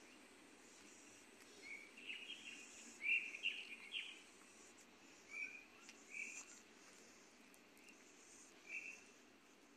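Birds chirping: a quick run of short high chirps about two seconds in, then a few scattered single chirps, over a faint steady hiss.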